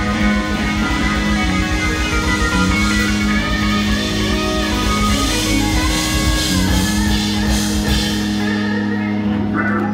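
Live blues-rock band: electric guitar playing lead lines over bass, drums and held low notes.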